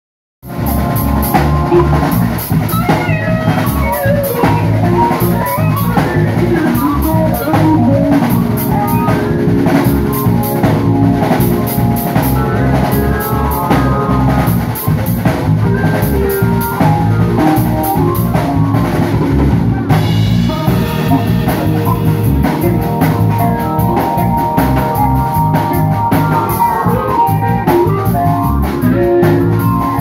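Live band playing an instrumental: drum kit, steel guitar with sliding notes, and electric keyboard. It starts abruptly, mid-song, about half a second in, and the high cymbal pattern changes about twenty seconds in.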